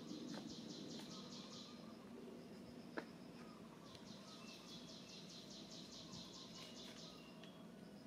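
Faint high pulsing trill of an insect, coming in two bursts of a couple of seconds each, with one sharp click about three seconds in.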